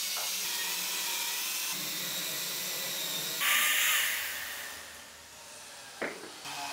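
Corded handheld electric power tool whining steadily as it cuts into wood. A louder, harsher stretch comes about three and a half seconds in, then the motor winds down and fades, and a sharp click sounds near the end.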